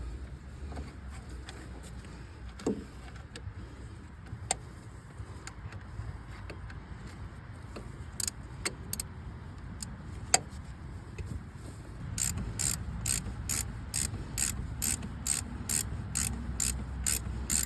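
Scattered light metal clicks and taps, then about twelve seconds in a ratchet spanner starts clicking in an even run of about three clicks a second while a hydraulic hose fitting on a tractor steering ram is done up.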